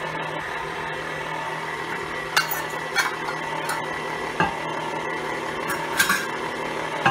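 Electric stand mixer running steadily, its wire whip beating mashed sweet potatoes and sugar in a glass bowl: a motor hum with a few sharp clicks.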